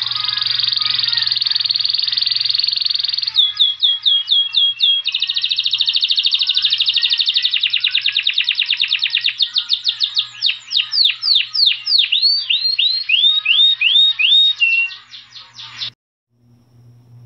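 Saffron finch singing: a long fast trill, a short run of down-slurred notes, a second fast trill, then a series of slower swooping notes that stops near the end.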